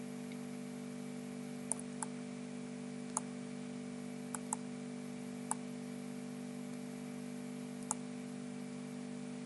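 Computer mouse clicking about seven times at irregular intervals over a steady low electrical hum from the recording setup.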